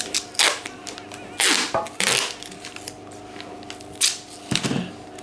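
Duct tape being pulled off the roll and torn: several quick ripping strips, the longest about a second and a half in.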